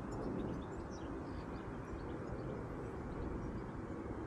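Steady low outdoor rumble, like wind on the microphone or distant traffic, with faint scattered bird chirps.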